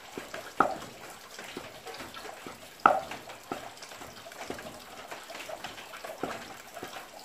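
Cleaver slicing chicken breast on a round chopping block: sharp knocks at irregular intervals, the two loudest about half a second and three seconds in. Under them, the steady hiss of a tap running into a steel sink, left on because it won't turn off.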